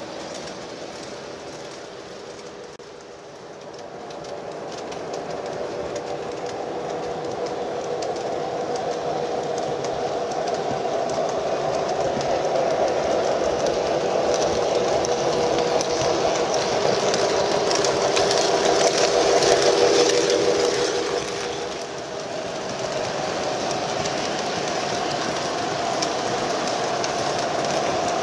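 O scale model freight trains running on three-rail track: the steady hum and rumble of motors and wheels. It grows louder from a few seconds in to a peak about two-thirds through as a train draws near, dips briefly, then builds again.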